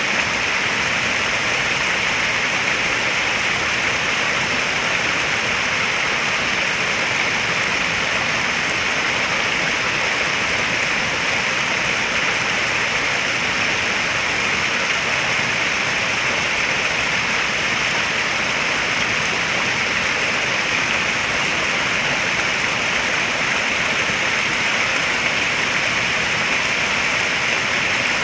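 Running water in a koi pond, a steady even rush with no breaks, like water pouring or splashing in from a small fall or inlet.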